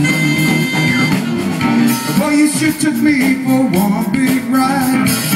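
Live band playing amplified through stage loudspeakers, with electric guitar and a lead line that wavers in pitch.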